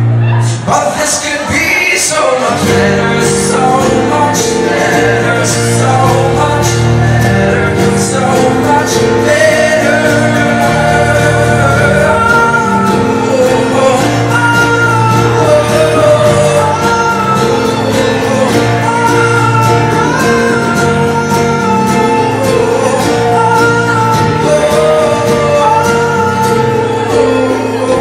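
Live band playing a song with singing over acoustic guitars, keyboard and hand drum.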